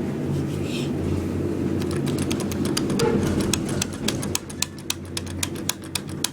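Elevator push button clicked over and over, several sharp clicks a second, starting about two seconds in, over a steady low hum.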